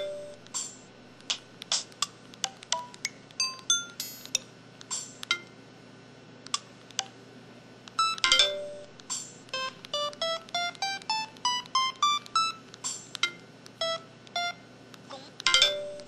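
Samsung SPH-X8300 mobile phone keypad tones: short electronic beeps as the keys are pressed. In the second half comes a quick run of about ten notes climbing in pitch like a scale, about three a second.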